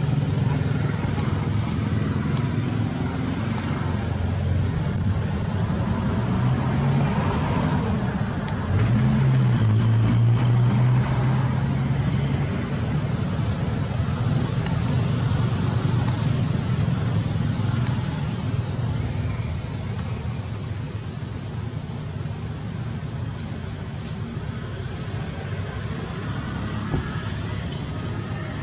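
A steady low engine drone. It steps up in pitch and gets louder about eight seconds in, holds for a few seconds, then settles and grows a little quieter in the second half.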